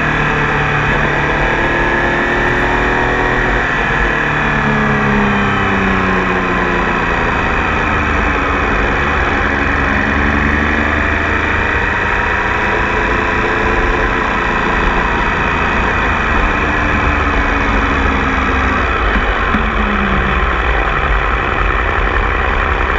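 Tiger Sport 800 motorcycle engine running, its note slowly rising and falling with throttle and engine speed, over a steady loud rushing noise.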